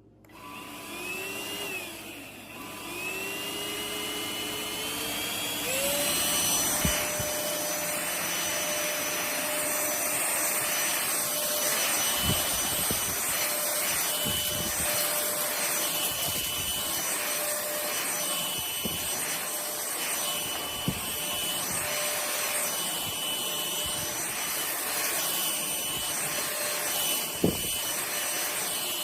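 Trucozie cordless stick vacuum switched on: its motor spins up with a rising whine over the first few seconds, then runs steadily with a high-pitched whine and airflow rush, with a few light knocks.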